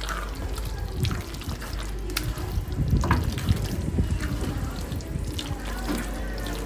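Spatula stirring thick, creamy macaroni and raw egg in a nonstick pan: irregular wet stirring and scraping with a few sharp clicks.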